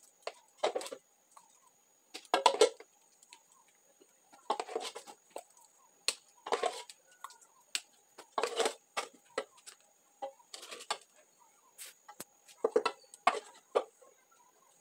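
A mug scraping and scooping thick soap paste out of a metal saucepan, in short scrapes every second or two, over a faint steady high-pitched tone.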